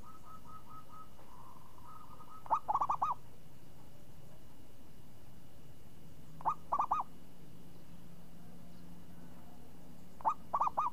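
Zebra dove (perkutut) singing its cooing song: three short phrases of quick, rolling notes, about four seconds apart.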